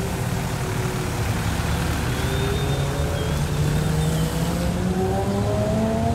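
A car engine accelerating, its pitch rising slowly and steadily, over a constant hiss.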